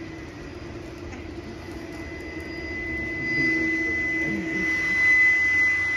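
Motor of a tall pole swing ride running with a steady high whine over a lower hum, growing louder in the second half and cutting off sharply near the end.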